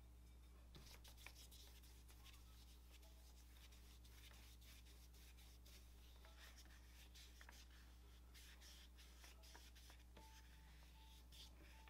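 Faint scratchy strokes of a watercolour brush rubbing across paper as a wash is laid on, over a steady low electrical hum.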